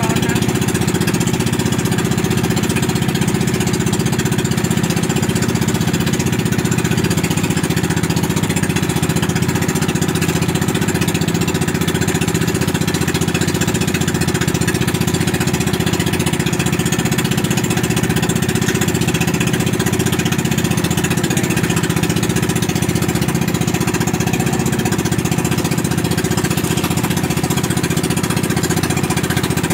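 Outrigger boat (bangka) engine running steadily and loudly with the boat under way.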